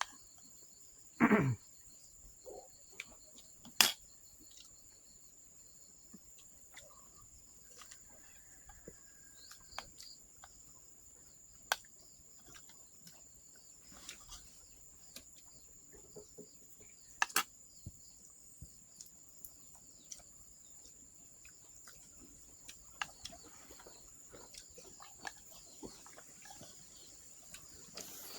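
Insects chirring in a steady high-pitched drone, with scattered sharp clicks and knocks. The loudest are a short knock about a second in and a sharp click near four seconds.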